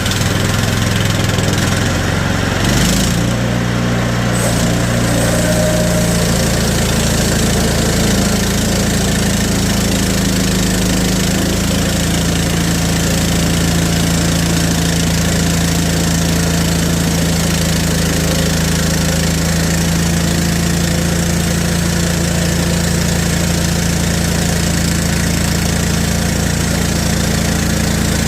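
The small gasoline engine of a Hudson HFE30 portable bandsaw sawmill runs steadily at speed. Its note changes briefly about three seconds in, then holds even.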